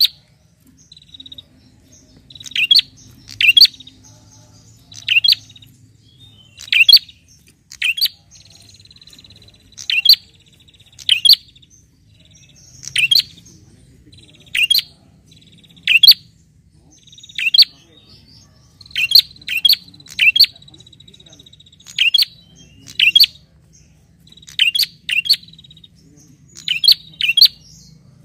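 Caged prenjak calling over and over: loud, sharp chirps, mostly in quick pairs, about once every second or so, with a softer buzzing trill between some of them. It is the insistent calling that bird keepers use to challenge a rival.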